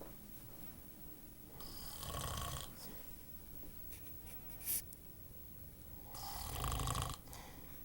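Snoring: two snores about four and a half seconds apart, each lasting about a second, with a short click between them.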